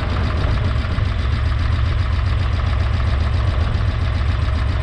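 Holder A45 compact tractor's engine running steadily, a low, even rumble heard from the driver's seat.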